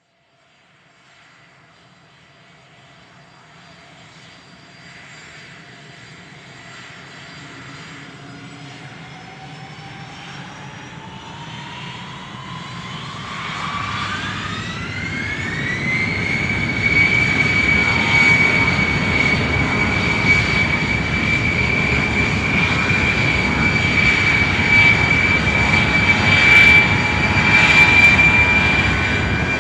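Airplane turbine engines spooling up for take-off: a whine climbs in pitch over about fifteen seconds and then holds high and steady, while the engine rush grows steadily louder and stays loud.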